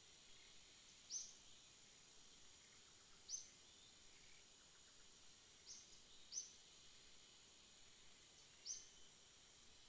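Faint natural outdoor ambience: a steady high insect drone, with a short high-pitched chirp sounding five times at uneven intervals of one to two and a half seconds.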